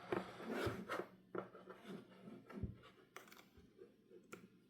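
Faint handling sounds: a scattering of light clicks and taps as a USB-C cable plug is fitted into a power bank and a portable music player.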